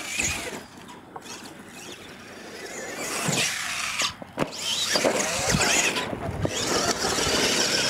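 Radio-controlled monster truck's motor whining up and down with the throttle, with its tyres scrabbling on loose dirt. A few sharp knocks about halfway through as the truck lands from a ramp jump.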